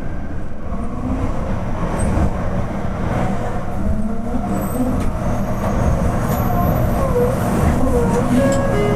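Fukuoka City Subway Nanakuma Line train, a linear-motor metro car, slowing to a stop as it pulls into a station, heard inside the cab. A low running rumble with faint wavering whines that rise and fall near the end.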